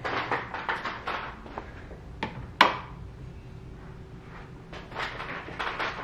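Footsteps and small handling knocks, with a sharp click about two and a half seconds in as a wall light switch is flipped on.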